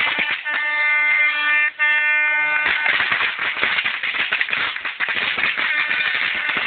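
A horn sounds in long blasts at one steady pitch. About two and a half seconds in, it gives way to a supporters' crowd cheering and clapping.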